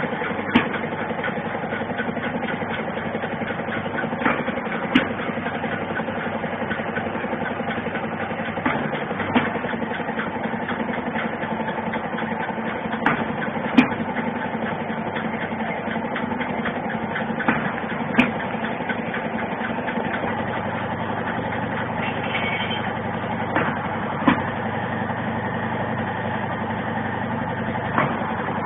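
Cap sealing machine running: a steady motor hum with sharp clicks every few seconds, often two in quick succession.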